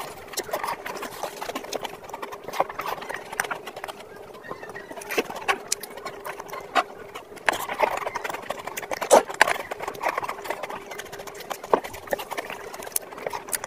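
Close-miked eating sounds: chewing and lip smacking, a continual run of irregular wet mouth clicks.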